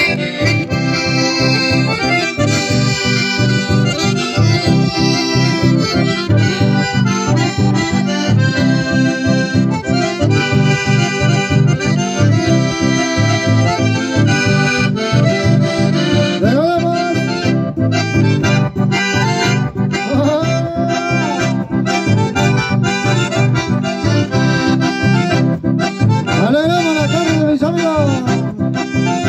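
Live folk band of two button accordions and an acoustic guitar playing a tune, the accordions leading over a steady strummed beat.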